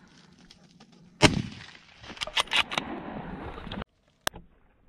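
A shotgun shot about a second in, with a long echo trailing after it, followed by several quick, sharper cracks a second later. The sound cuts off suddenly, and one sharp click comes near the end.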